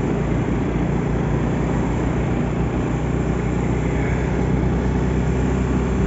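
Steady rush of wind on the microphone over the running engine of a motorcycle being ridden along a road.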